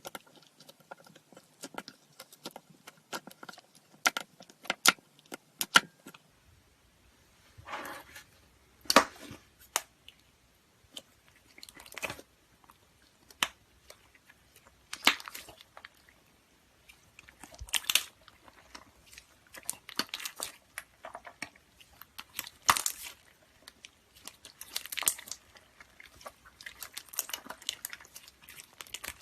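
Slime being squeezed, pressed and poked by hand, close up: irregular sharp clicks and pops with short crackly squishes every second or two.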